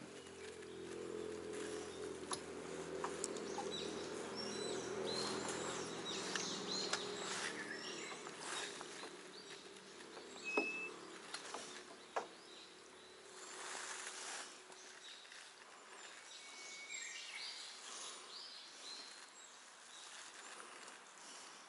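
Small clicks and rustles of hands rigging a soft insect lure onto a hook, with a few short bird chirps. A low steady hum fades out about halfway through.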